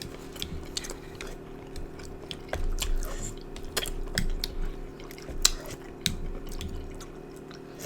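Close-up eating sounds: a person chewing food, with scattered sharp clicks and smacks over a steady low hum.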